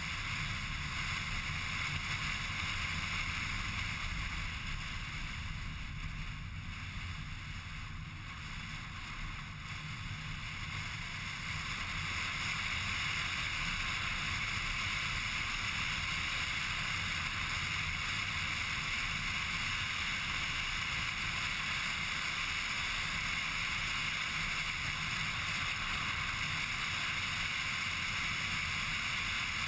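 Steady road and engine noise heard from inside a car driving at speed on a narrow sealed road, with no voices. It eases off briefly about a quarter of the way in, then holds steady.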